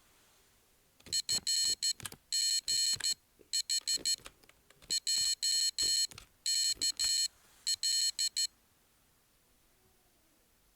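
An IchigoJam computer's buzzer beeping Morse code: a high, buzzy tone keyed in short and long beeps, in several groups separated by short gaps. It stops about two seconds before the end.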